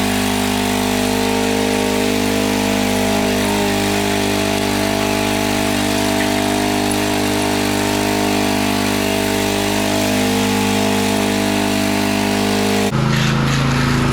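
An engine running steadily at a constant speed, a continuous drone. About 13 s in it switches abruptly to a lower, duller engine note.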